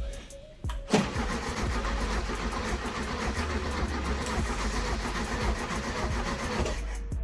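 The 1971 VW Beetle's air-cooled flat-four engine starting and running, with a sharp bang about a second in. The sound thins out near the end.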